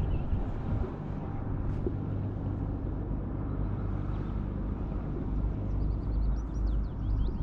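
Steady low rumble of a distant engine with wind noise on the microphone. A run of short high chirps comes in near the end.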